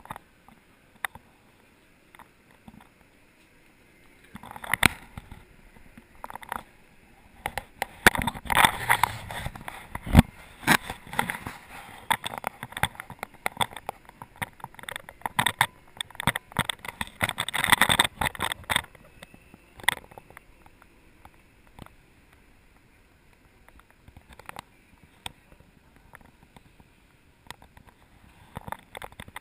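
Irregular knocks and rattles from a Segway rolling over cobblestones, picked up by a camera mounted on its handlebar; heaviest from about 8 to 19 seconds in, sparser afterwards.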